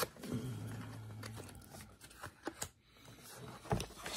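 Hands opening a snack pie's cardboard box and its wrapper: scattered crinkles, short rips and clicks.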